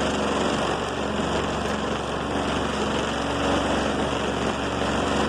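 Air compressor running loudly and steadily, then cutting off suddenly at the very end.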